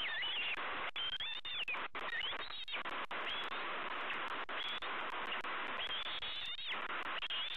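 Bald eagles calling: a run of high, thin, whistled calls, each under a second, that rise and then level off, repeated about every second or so over a steady hiss.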